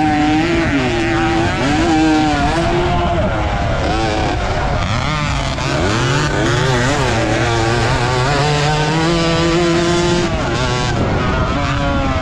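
Race motorcycle engine of an AX115-class bike, heard on board, revving up and down as the rider works the throttle and gears through the corners and straights of a dirt motocross track. Wind and rough-ground noise sit under the engine the whole time.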